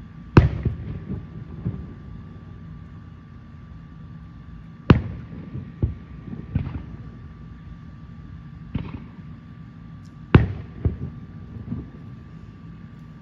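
Aerial firework shells bursting: a series of about eight sharp booms, each followed by a short rumble. The three loudest come about half a second in, about five seconds in and about ten seconds in, with smaller bangs between them.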